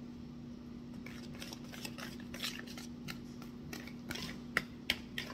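Wire whisk stirring thick muffin batter in a mixing bowl: quick, irregular scrapes and clicks of the wires against the bowl, with two sharper knocks near the end. A steady low hum runs underneath.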